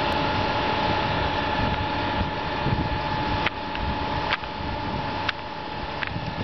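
Steady machinery running with a constant whine: the motor-driven spindles of a multi-spindle machine turning diamond profiling wheels in their tanks. Four sharp clicks come about a second apart in the second half.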